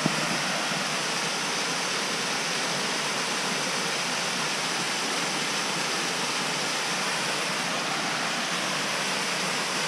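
Small waterfall cascading over ledge rock into a pool: a steady, even rush of falling water.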